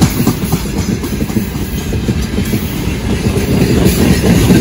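Freight train wagons rolling past, their wheels clattering steadily over the rails.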